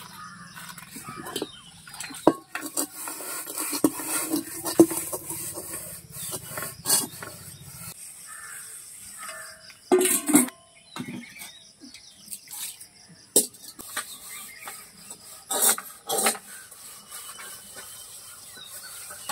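Metal cooking pots and plates being scrubbed by hand with a straw scrubber, with scraping and several sharp clanks as the utensils knock against each other and the ground.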